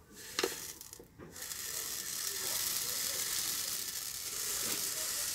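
Dry-roasted, skinned urad dal (white lentils) pouring from a steel bowl into a steel tin of dried rice: a steady hiss of dry grains sliding and falling. The pour starts about a second in, after a couple of light knocks.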